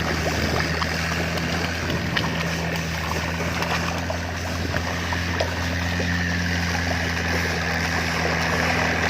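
Sludge-dredging boat's engine running steadily with an even hum, over the rush and gurgle of pumped mud slurry flowing.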